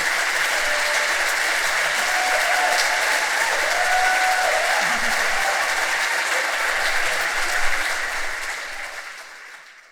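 Audience applauding steadily, fading out over the last two seconds.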